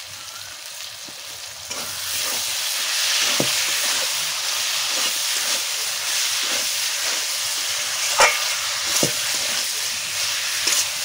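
Minced chicken, onions and tomatoes sizzling in hot oil in a metal kadai while a metal spatula stirs and scrapes through them. The masala is being fried down. The sizzle grows louder about two seconds in, and the spatula knocks sharply against the pan a few times, loudest about eight seconds in.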